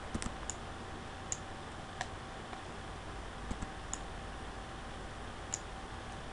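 Irregular, scattered clicks of a computer mouse and keyboard over a steady faint hiss from the recording.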